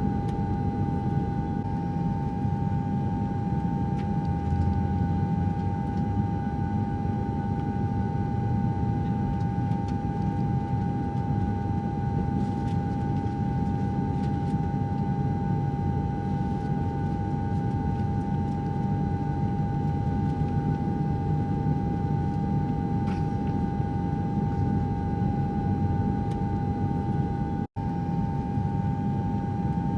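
Airliner cabin noise: the steady low rumble of the jet engines under a constant whine, heard from inside the cabin. Near the end the sound cuts out for an instant and then resumes.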